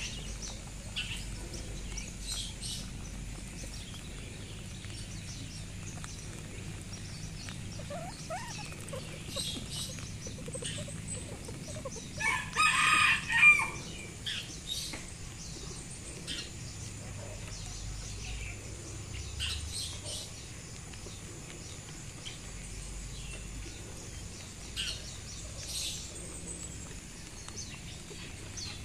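Outdoor animal calls: one loud call in several parts, lasting about a second and a half, about twelve seconds in, over frequent short high chirps.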